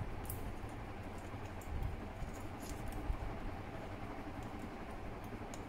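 A few faint plastic clicks and low handling rumble as a temperature sensor's plug is worked into the sensor port on a pistol-grip RC transmitter.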